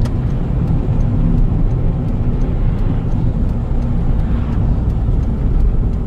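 Car driving along a highway, heard from inside the cabin: a steady rumble of engine and tyres on the road.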